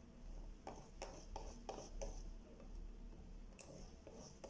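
Wire whisk beating crepe batter in a glass bowl: faint, quick scraping and tapping strokes of the whisk against the bowl and through the batter.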